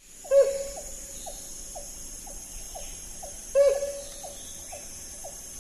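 Tropical forest ambience: a bird gives a loud call twice, about three seconds apart, over a regular run of short falling calls about two a second and a steady high insect drone.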